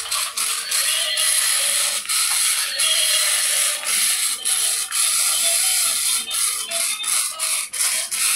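Battery-powered walking toy horse running: its small motor and plastic gears give a steady clattering, ratcheting whir with many brief dips.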